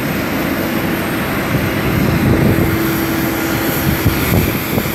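Steady aircraft noise on an airport apron: a constant hum over a broad rushing hiss, with a thin high whine on top.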